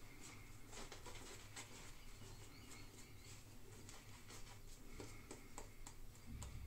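Mühle Rocca double-edge safety razor scraping through lathered beard stubble in a quick series of short strokes, faint.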